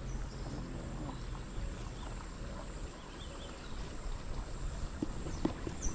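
Cast net being hauled in by its rope out of a shallow trench: faint rustling and light knocks, a few of them near the end, over a steady low wind rumble and a thin steady high whine.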